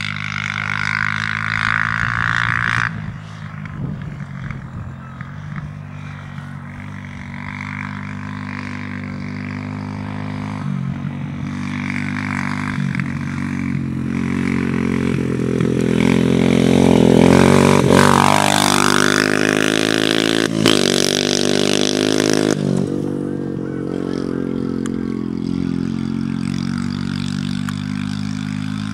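125cc dirt bike engine being ridden hard around a field track, revving up and down as the rider works through the gears. It gets louder and higher-pitched as the bike comes close about two-thirds of the way through, then fades, with a couple of sharp knocks soon after, over a steady low drone.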